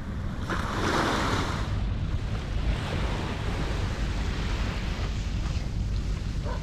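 Wind buffeting the microphone over the wash of sea water along the shore, with a louder rush of noise about a second in.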